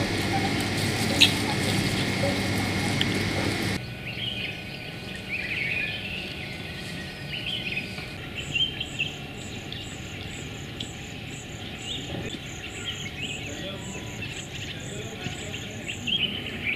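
Outdoor wildlife ambience of birds chirping, after a louder opening few seconds with a steady low hum that stops abruptly. From about eight seconds in, a high, short call repeats about twice a second.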